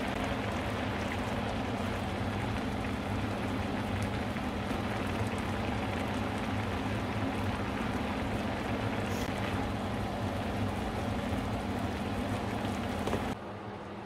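Shredded cabbage in a mustard-cream sauce bubbling hard in a frying pan, a steady sizzling hiss with a low hum underneath. It cuts off suddenly about a second before the end, leaving only a quieter hum.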